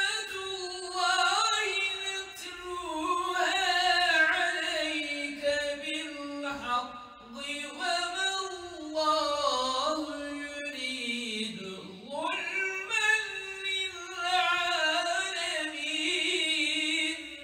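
A man's solo unaccompanied Islamic chant, sung in long, ornamented phrases with short breaths between them, the cupped-ear style of Quran recitation.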